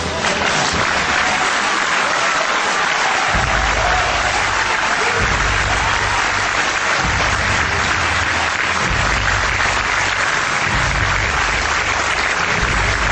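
Large audience applauding, a dense steady clapping that starts abruptly and holds at an even level.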